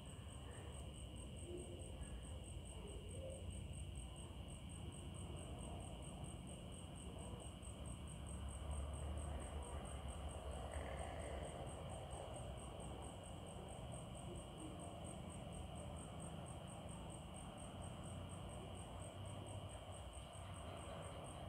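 Crickets chirping: a high, evenly pulsed trill repeating several times a second without a break, with a second steady insect drone lower down, over a faint low rumble that swells about nine seconds in.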